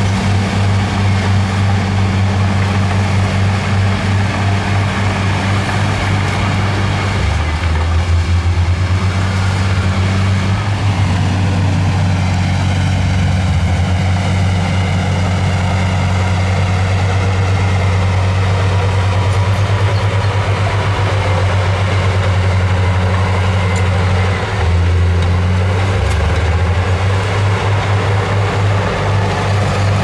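Heavy diesel engine of earthmoving equipment running steadily with a deep, continuous rumble. Its low note shifts down a couple of times, about seven seconds in and again near the end.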